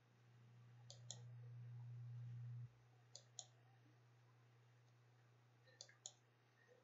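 Computer mouse clicking, three times, each a quick press-and-release double click about two seconds apart. A faint low hum swells underneath and stops abruptly about two and a half seconds in.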